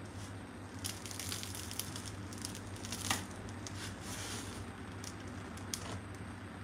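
Crisp, well-browned crust of a freshly baked baguette crackling and tearing as the loaf is broken in half by hand: a run of small crackles, with a sharper crack about three seconds in and another near the end.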